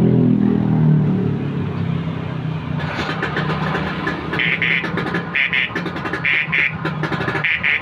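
Vespa scooter's engine running steadily while its newly rewired 6-volt Vespa Sprint horn, fitted for a shriller sound, gives four short beeps in the second half, each about half a second, showing the horn circuit works again.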